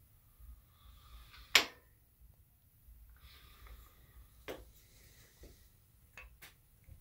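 Two sharp knocks, a loud one about a second and a half in and a softer one about three seconds later, then a few faint clicks near the end, over quiet room tone with a light rustle of handling.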